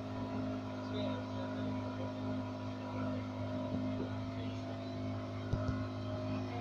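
Small outboard motor driving a boat, running at a steady speed with an even drone. A short knock about five and a half seconds in.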